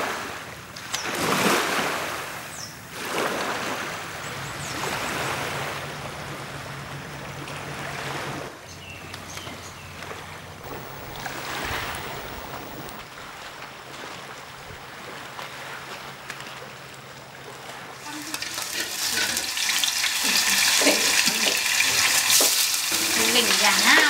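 Small waves washing in against a shallow shore in slow swells, with a low steady hum for a while. About three-quarters of the way in, this gives way to food frying in a hot pan, a loud, dense sizzle and crackle.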